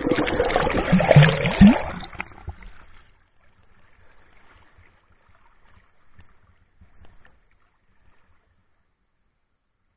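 River water sloshing and splashing right against the microphone as a person moves through it, with irregular low thuds, for the first two to three seconds. It then drops to faint, scattered water sounds and fades to near silence.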